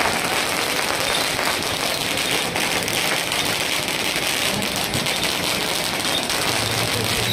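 A long string of firecrackers going off in a dense, continuous crackle.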